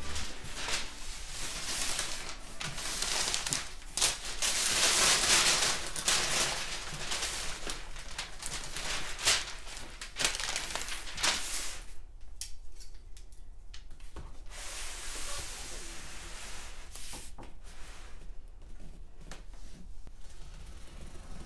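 Gift-wrapping paper being torn and crumpled off a cardboard box: loud, irregular rustling and tearing for about the first twelve seconds, then quieter rustling and handling of the box.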